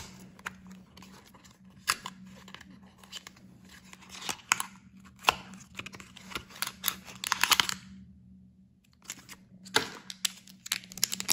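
Small cardboard blind box being handled and its end flap torn open, a run of scrapes, clicks and tearing sounds. From a little before the end, the foil pouch inside crinkles as it is pulled out.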